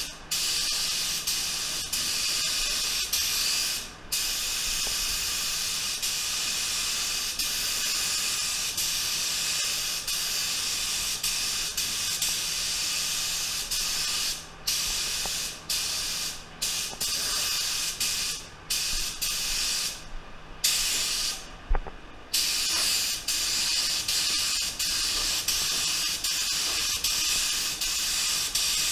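Tuba TR300 HVLP gravity-feed spray gun spraying base coat onto a car bumper cover, a steady hiss of atomising air. The hiss cuts out briefly about four seconds in and several times in the second half, where the trigger is let off between passes.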